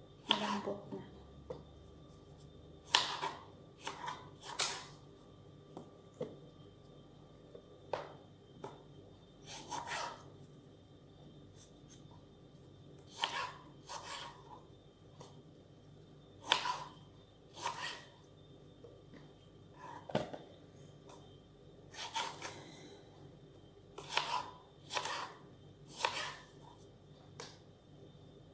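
Knife slicing and chopping tomatoes on a cutting board: irregular knocks as the blade goes through and meets the board, one to two seconds apart, sometimes two or three in quick succession.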